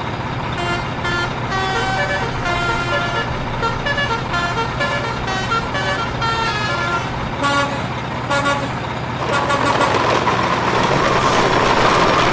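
Dubbed truck sound effect: a multi-tone truck horn plays a run of short notes that step up and down in pitch, then gives way to a steady hissing engine noise from about nine seconds in.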